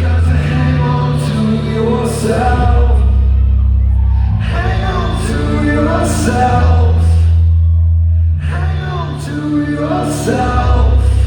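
Live rock band playing a song: a male lead vocal over long held bass notes and guitars, with the ring of a large hall.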